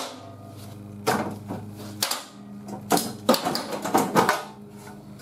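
Sheet-metal rocker panel clanking, rattling and scraping as it is handled and taken off its clamps, in a run of sharp clacks from about a second in. A steady low hum stops about two seconds in.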